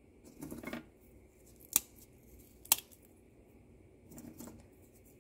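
Crisp fried namak pare pieces being handled and added by hand to chaat: a short crumbly rustle, two sharp crisp cracks about a second apart, then another short rustle near the end.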